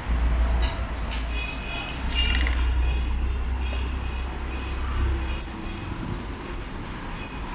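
Box truck driving past close by, its engine a steady low drone that fades away about five seconds in, amid general street traffic.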